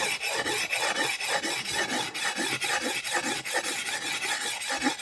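Whetstone rubbed in quick, continuous strokes along the steel edge of a hedge-cutting hook, a steady scraping rasp: honing the secondary bevel on the second side of the blade.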